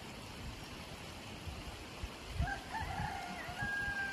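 A rooster crowing once, starting a little past halfway through, its last note long and slightly falling, over a steady background hiss.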